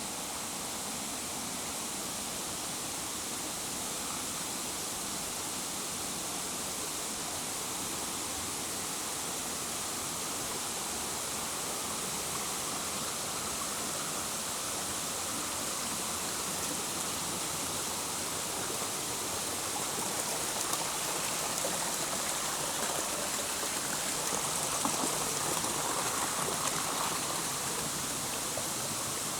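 Steady rush of flowing water, a smooth hiss with no pauses, swelling slightly about two-thirds of the way through.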